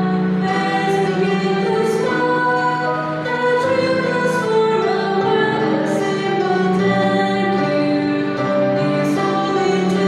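Mixed vocal quartet, two men and two women, singing together in harmony, with long held notes.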